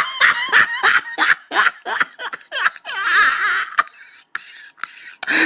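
A person laughing hard in quick, short bursts: the 'oh no no no' meme laugh. It trails off into a wavering breath about three seconds in.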